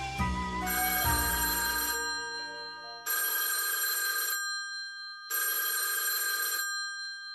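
A brief run of cartoon music notes, then a bell telephone ringing twice, each ring lasting over a second.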